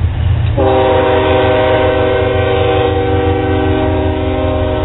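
Multi-chime air horn of Norfolk Southern GE ES40DC locomotive 7708 sounding one long chord, starting about half a second in and held steady, over the low rumble of the diesel locomotives passing close by.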